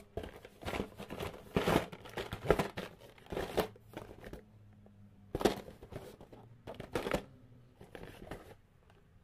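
Cardboard coffee boxes being handled and slid against one another inside a cardboard shipping carton: a run of irregular rustles and scrapes that thin out near the end.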